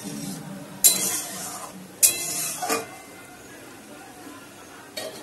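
Plastic spatula stirring boiling dal with jute leaves in an aluminium kadai, knocking against the pan twice, about one and two seconds in. After that the dal simmers with a soft steady hiss.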